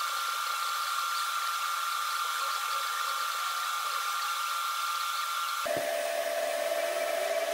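TIG welding arc: a steady hiss with a high, even whine, the welding of a V-band flange onto an exhaust downpipe. About six seconds in, the whine drops abruptly to a lower steady pitch.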